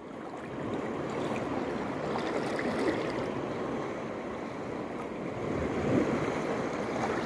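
Sea waves washing at the shore, a steady rushing noise that swells briefly about six seconds in.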